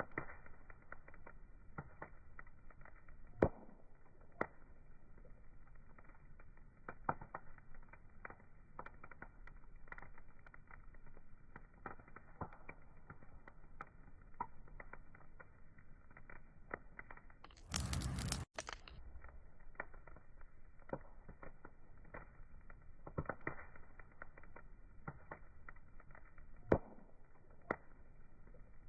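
Wood fire crackling, with irregular sharp pops and snaps over a low steady hiss. About two-thirds of the way through, a brief louder burst of noise lasts under a second and ends in a short dropout.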